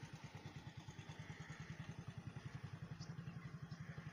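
An engine running steadily at idle, with a fast, even, low thudding beat.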